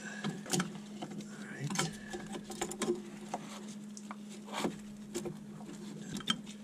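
Scattered clicks and knocks of a Dahl diesel fuel filter/water separator being handled and fitted onto its metal mounting head by a gloved hand, over a steady low hum.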